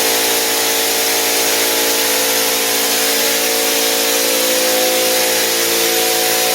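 Drywall texture hopper gun spraying: a steady hiss of compressed air with the even hum of the air compressor running underneath.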